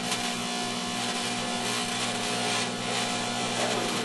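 Microwave oven running with a steady electrical hum under a harsh, crackling buzz of arcing inside it; the arc is burning a hole through the top of the oven.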